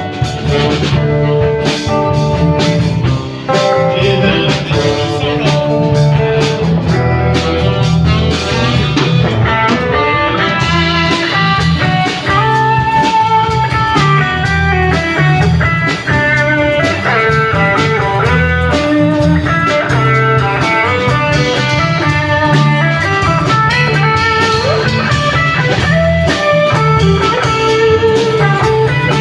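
Live blues-rock band playing an instrumental passage without vocals: guitars over bass and drums.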